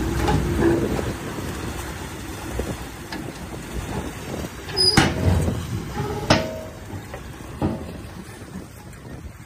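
Heavy earthmoving machinery running with a low rumble, with three sharp clanks in the second half; the first is the loudest.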